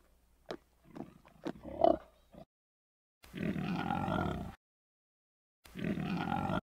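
Bearded pig grazing, with sharp clicks and short grunts. After a sudden cut-out, warthogs make two longer rough bursts of grunting while feeding.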